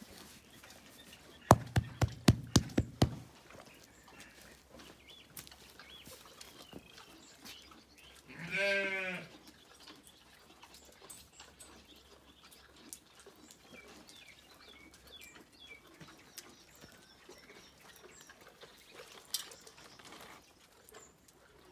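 A quick run of about seven sharp knocks, then a sheep bleats once, a quavering call about a second long, near the middle.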